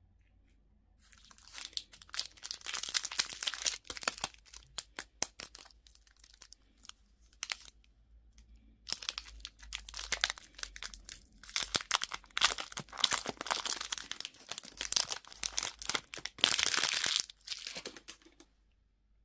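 Crinkly candy packaging being handled and torn open: two long spells of dense crackling and tearing, with a few scattered crinkles in between.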